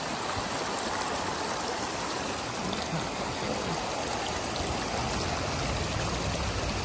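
Small creek running steadily over its bed, a continuous rushing, babbling water sound.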